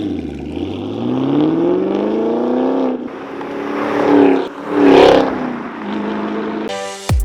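Sixth-generation Camaro V8 running through an AWE Touring Edition cat-back exhaust with X-pipe and quad tips: the revs climb steadily for a couple of seconds and drop, then two quick throttle blips, then it settles to a steady note. Music comes in near the end.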